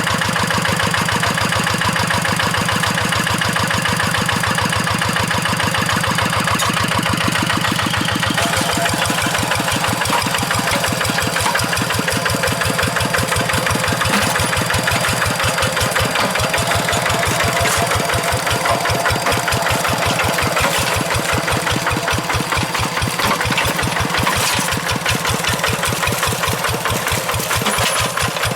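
Kubota RD85Di2S single-cylinder diesel engine of a two-wheel hand tractor running steadily, with a fast, even knock of its firing strokes.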